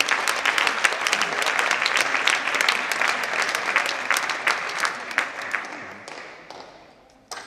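Spectators clapping after a point in a table tennis match, a dense round of applause that fades away over about six seconds. A single sharp click comes shortly before the end.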